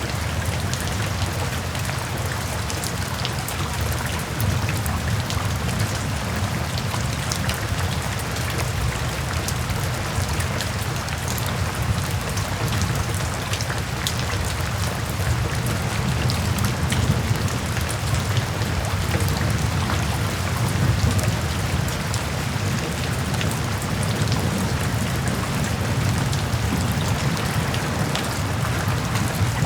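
Steady rain falling, with many separate drop hits over a constant hiss and a steady low rumble underneath.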